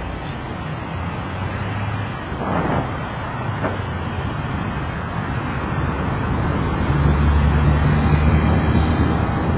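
City road traffic with cars driving past. About two and a half seconds in, a short noise swells and fades. From about seven seconds in, a car passing close alongside brings a louder engine and tyre hum.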